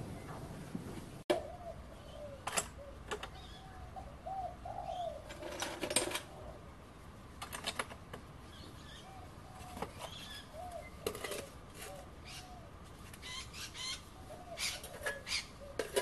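Birds calling with short, low, repeated notes, over scattered clinks and knocks as a metal paint-tin furnace and a gas torch are handled and set on a wooden bench.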